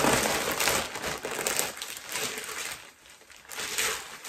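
Packaging crinkling and rustling as a garment is unwrapped and pulled out of it by hand, louder at first, easing off about three seconds in and picking up again near the end.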